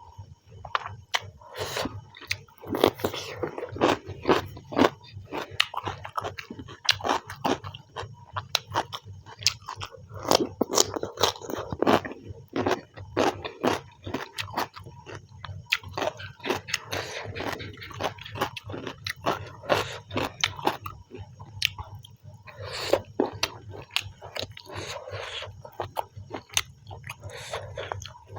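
A person eating rice and chicken close to the microphone: irregular chewing, wet mouth sounds and occasional crunching bites, some louder clusters coming every few seconds.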